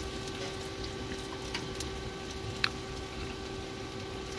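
Rain falling on the motorhome roof: a steady hiss with a few light drips or ticks and a faint steady hum underneath.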